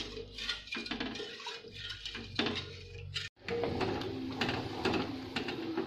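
Wooden spatula scraping and knocking against a steel pan as sugar and water are stirred; after a cut about three seconds in, sugar syrup boiling with a dense bubbling and crackling as it is stirred and cooked down until sticky.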